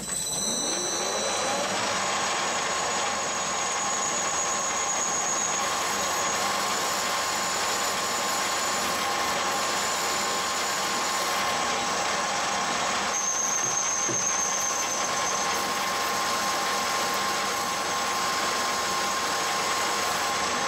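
Colchester Student metal lathe spinning up over the first couple of seconds, then running steadily with a constant whine while a rear-mounted parting blade is hand-fed into the spinning stock. A high squeal comes and goes, once at the start and again about two-thirds through.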